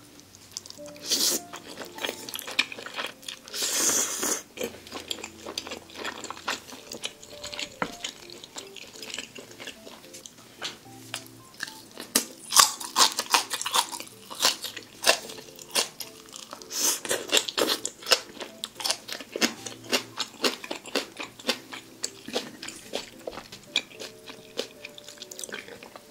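Close-up eating sounds: slurping jjajang ramen noodles, then chewing crunchy green-onion kimchi in many quick, wet, crackly bites.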